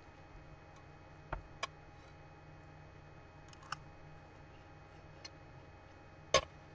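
Metal spoon and fork clinking against a stainless steel pot as chicken salad is stirred: a handful of sharp, separate clicks, the loudest near the end, over a faint steady hum.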